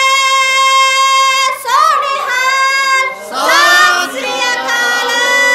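A young woman calling a Sikh jaikara into a microphone, drawing the call out in long, high held notes with short swoops between them; about three seconds in, several voices shout together in response before a held note resumes.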